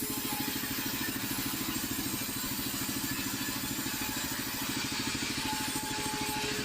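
Plywood cutting machine running steadily, its motor giving a fast, even throb with a constant hum.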